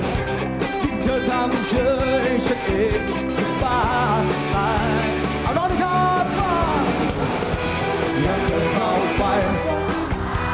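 Live rock band playing: a male lead singer sings over electric guitar and drum kit.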